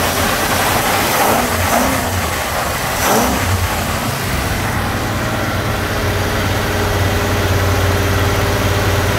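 1961 Pontiac V8 with three two-barrel carburettors (Tri-Power) running steadily with a low hum, heard up close in the open engine bay. Its pitch briefly rises and falls a couple of times in the first few seconds, then it settles to an even idle.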